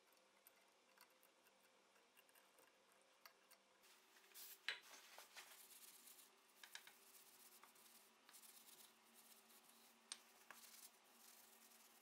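Faint handling noise: a paper towel rubbing and rustling as a steel gun part is wiped, with a sharp knock about five seconds in and a few small ticks.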